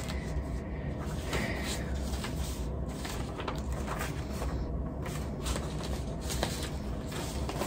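Paper sheets rustling and being shuffled as they are handled and set aside, with small scattered rustles and taps over a steady low hum.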